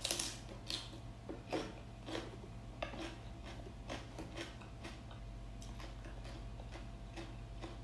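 Close-up eating sounds: an irregular scatter of short clicks and crunches from chewing and from utensils touching a dish.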